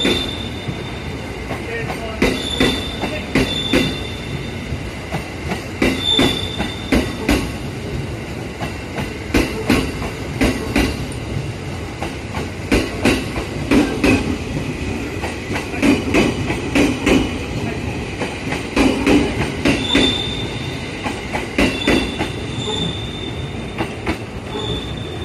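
Wheels of an E217 series train, towed unpowered by a locomotive, rolling slowly. They clatter in groups over rail joints about every second or so, with a high wheel squeal coming and going several times.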